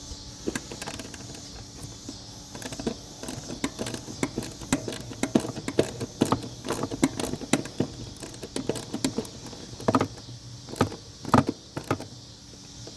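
Socket ratchet clicking in short runs with small metallic taps as it backs out the three small screws holding the blower motor resistor, the loudest clicks near the end. Insects chirp steadily in the background.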